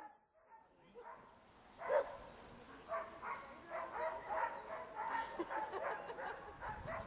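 A dog giving quick, repeated high whines and yips, starting sharply about two seconds in.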